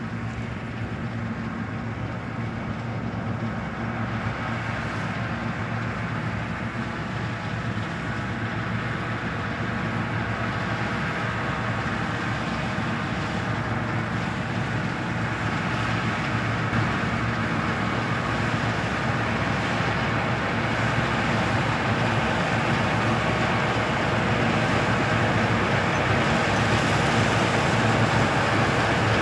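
New Holland combine harvester running at a steady working pace, a continuous low engine drone with a mechanical rumble that grows gradually louder.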